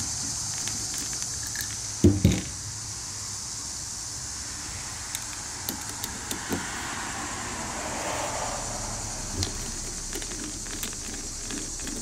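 Metal parts and hand tools being handled during carburetor disassembly: a sharp double knock about two seconds in, then scattered light clicks and taps, over a steady hiss.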